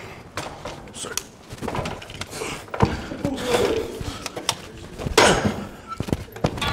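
Scattered knocks and clatters of an electric rental scooter being handled and moved on a hard floor.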